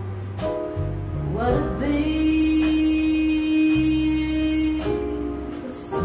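Music from a CD played through Boston Acoustics M350 floor-standing loudspeakers and heard in the room: a steady bass line under a singing voice that slides up and holds one long note, then moves on near the end.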